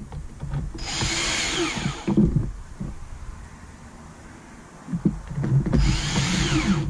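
Cordless drill/driver running in two short bursts, each about a second long, driving screws that fasten a car speaker into a kick panel, with knocks of handling between the bursts.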